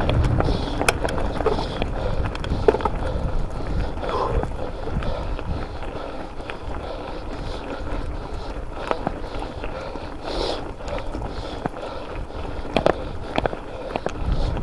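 Mountain bike rolling over a rough track: tyre noise with a low rumble, and frequent sharp clicks and rattles from the bike as it goes over bumps.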